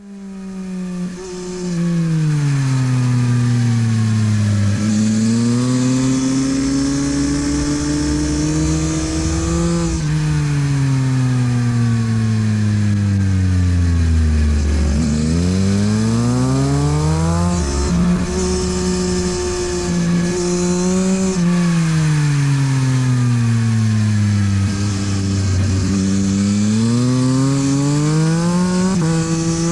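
Yamaha MT-09 SP's 890 cc three-cylinder engine through a LeoVince aftermarket exhaust, ridden hard on a race track. The revs repeatedly fall away on the brakes, then climb again as it accelerates out of the corners, with a stretch held high in the middle.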